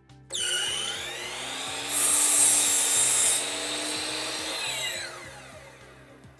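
Miter saw motor starting up, its blade cutting through a length of wooden door casing moulding for about a second and a half from about two seconds in, then the motor winding down with a falling whine.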